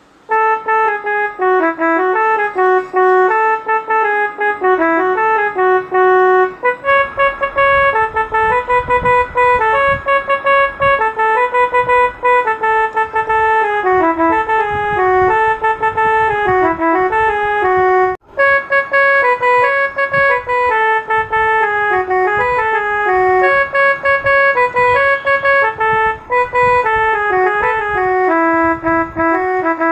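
Electronic keyboard playing a devotional bhajan melody in a sustained, organ-like voice over chords. A drum beat joins about seven seconds in, and the music cuts out for a split second just past the middle.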